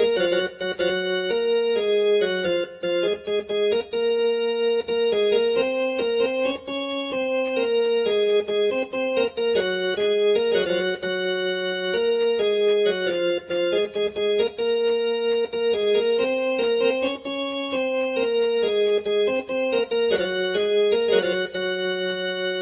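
Casio CTK-2550 portable electronic keyboard playing a melody over a lower second part on one of its built-in tones. The notes hold steady without fading, as on an organ-type voice.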